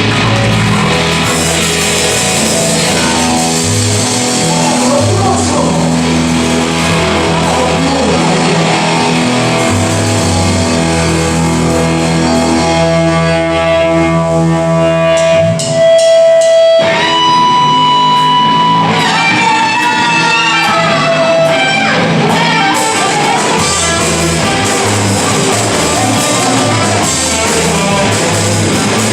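Live rock band playing a rock and roll song with electric guitar, bass and drums. About halfway through, a lead guitar holds long notes and bends them.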